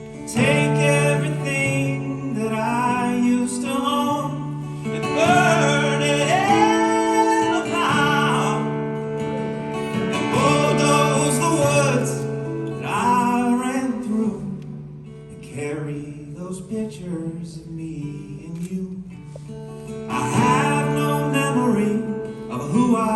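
Man singing with acoustic guitar accompaniment, holding long notes that slide in pitch. The singing pauses for a few seconds in the middle while the guitar carries on, then comes back near the end.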